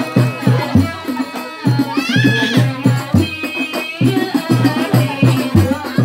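Rebana frame drums beating a steady rhythm, about three strokes a second, with singing over the beat.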